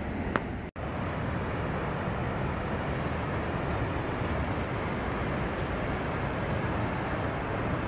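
Steady rushing of a tall waterfall plunging into its pool, an even noise with no rhythm; the sound cuts out for an instant just under a second in.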